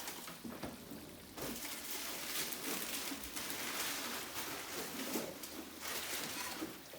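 Battered potato pieces deep-frying in hot oil in a wok, a steady sizzle with fine crackling that grows louder about a second and a half in.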